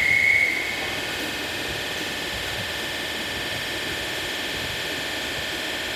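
Steady hum and hiss of a Merseyrail electric train standing at the platform, opening with a single high tone about a second long.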